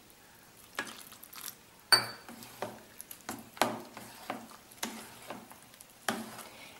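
A spatula stirring and mashing curd rice in a stainless steel bowl: a series of soft scraping, squelching strokes with light knocks against the steel. About two seconds in, one sharper clink makes the bowl ring briefly.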